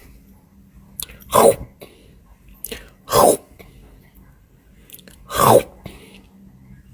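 Three short, loud cries about two seconds apart, each sliding down in pitch, each led by a faint click.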